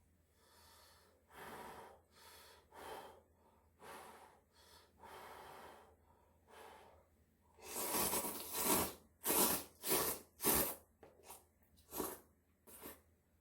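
Close-miked eating sounds: a string of short, noisy mouth sounds such as chewing, slurping and breathing, with a louder run of them about two-thirds of the way through.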